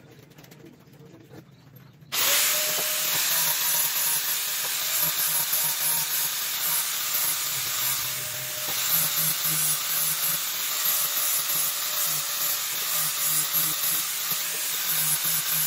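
Angle grinder with a sanding disc switched on about two seconds in, then running steadily as it grinds a curved wooden roller piece.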